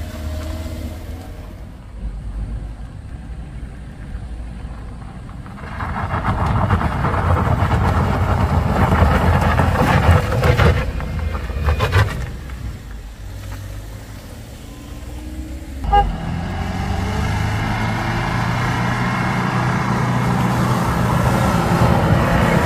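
Heavy truck engines running on a steep climb. The sound swells loud from about six seconds in and drops back again. A short sharp knock comes about sixteen seconds in, and after it an engine grows steadily louder.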